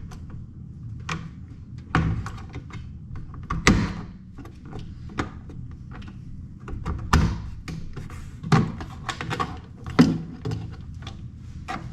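Irregular knocks, clicks and several heavier thunks of plastic parts being handled and fitted back together on a microwave door while its replacement handle is put in place.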